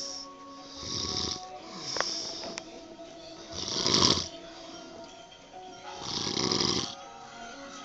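A sleeping dog snoring: three slow breaths, about two and a half seconds apart, each with a low rumble and a hiss. A single sharp click comes about two seconds in. Music plays faintly in the background.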